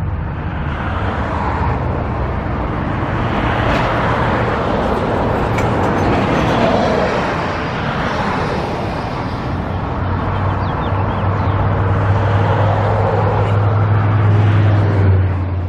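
Road traffic on a busy street: passing cars swell and fade in a steady wash of tyre and engine noise. A low engine drone grows louder over the last few seconds.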